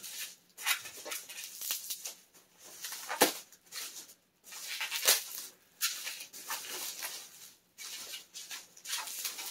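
Bubble wrap crinkling and rustling as a wrapped bundle of comic books is handled and unwrapped, with a few sharp snaps and crackles.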